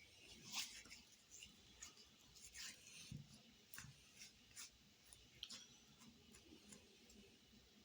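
Faint, scattered rustles and soft clicks of things being handled, a dozen or so short scratchy sounds spread through the quiet.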